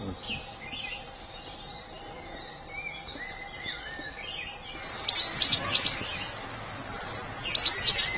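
Birds calling in forest: scattered whistled notes, with a quick run of sharp chirps about five seconds in and another near the end.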